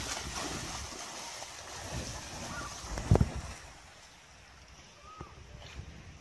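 Water splashing as a dog paddles hard through a river, with one sharp thump about three seconds in. The splashing is much fainter over the last couple of seconds.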